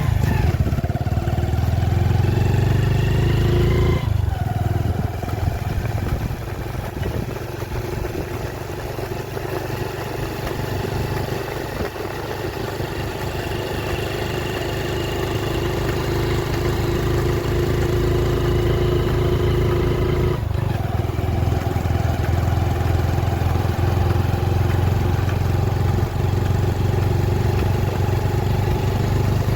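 A motor vehicle engine running under load, its pitch climbing steadily and dropping abruptly twice, about 4 and 20 seconds in.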